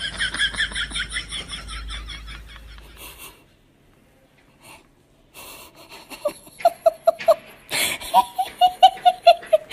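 A person laughing, first in rapid high-pitched pulses for about three seconds. After a short near-silent pause comes another run of quick repeated laughs, strongest near the end.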